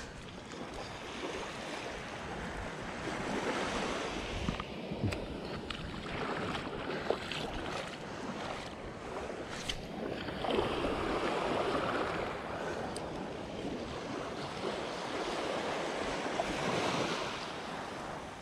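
Small waves washing up onto a sandy beach, the surf rising and falling several times, with wind on the microphone and a few faint clicks.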